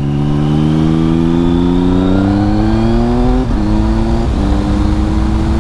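Triumph Speed Triple 1050's three-cylinder engine through a GPR Furore Nero 4 exhaust with its baffle removed, pulling hard with a steadily rising note. About 3.5 and 4.3 seconds in the note dips briefly twice as the quick shifter changes up, then it runs on steadily.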